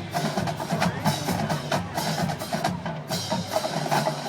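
Marching band drumline playing a fast percussion cadence: snare and bass drums with sharp, clicking stick strokes in a steady, driving beat.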